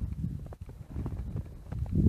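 Footsteps on snow-covered lake ice, an irregular run of soft steps, over a low rumble of wind on the microphone that swells near the end.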